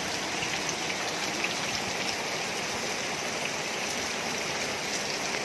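Steady rain falling, an even hiss with a few single drops ticking sharply close by.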